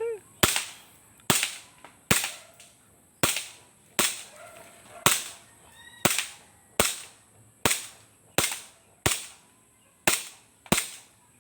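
Gas blowback airsoft Glock 18 pistol firing single shots, about fifteen sharp pops spaced roughly half a second to a second apart.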